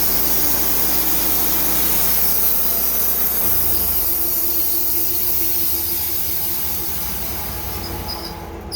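Portable sawmill running under load as its blade cuts through a log, the engine note shifting about three and a half seconds in. The sound eases off slightly near the end as the cut finishes.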